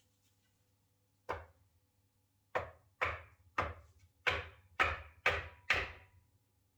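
Eight heavy blows of an axe chopping into wood: one on its own about a second in, then seven in quick succession about half a second apart.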